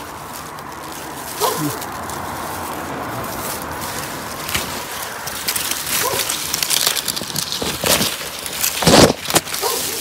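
Rustling and crackling of brush as plants are pushed through and handled, over a rushing noise that grows steadily louder, with a loud knock about nine seconds in.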